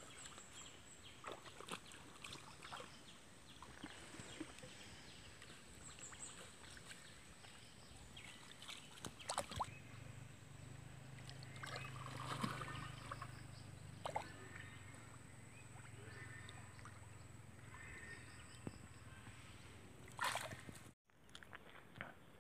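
Faint riverside ambience with scattered light splashes and rustles in the water and vegetation. A low steady hum comes in about halfway through, and the sound cuts off abruptly near the end.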